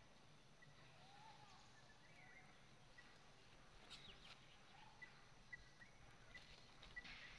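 Near silence with faint animal calls: short high chirps repeating every second or so, a few soft arching calls lower down, and light clicks about four seconds in and again near the end.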